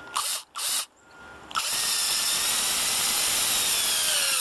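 Cordless drill driving a 3-inch deck screw through the door jamb into the wooden stud: two short bursts, then a long steady run from about a second and a half in. Its whine slowly sinks in pitch as the screw bites deeper.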